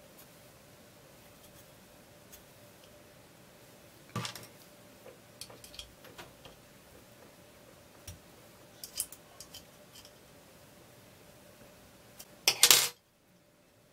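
Scattered light metallic clicks and taps from handling a homemade jeweler's saw frame while fitting its blade and working the blade clamps with a small metal key, with a louder brief metallic clatter near the end.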